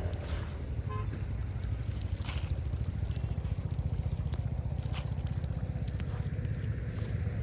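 A small engine running steadily with a fast, even low-pitched pulse, with a few sharp clicks over it.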